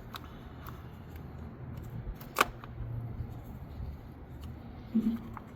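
A few light plastic clicks and knocks as ignition coils are pulled out of the engine, with one sharper click about two and a half seconds in.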